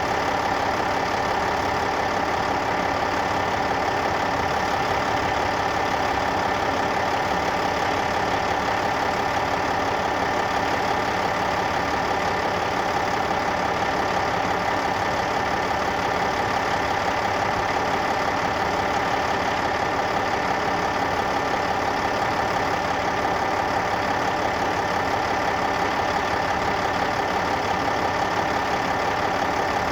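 Heavy diesel engine of earthmoving machinery running steadily at an even speed, with no change in pitch or load.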